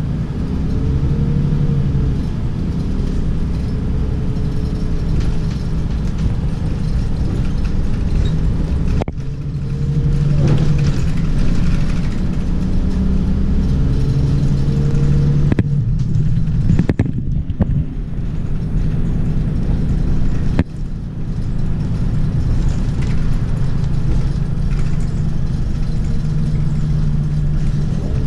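Mercedes-Benz city bus driving, heard from inside at the front: a steady engine and road rumble, the engine note rising and falling, with brief dips about 9, 16 and 21 seconds in.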